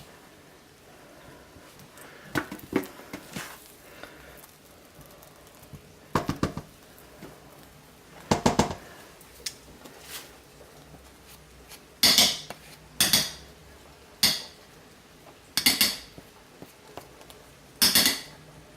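A utensil scraping and clinking against the sides of a pot in short bursts, a few seconds apart and more often in the second half, as thick hot process soap is scraped down from the edges mid-cook.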